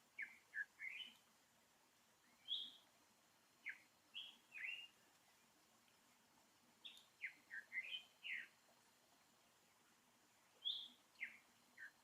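Short high-pitched chirps, some falling and some rising in pitch, coming in clusters of two to five every couple of seconds over a very quiet background.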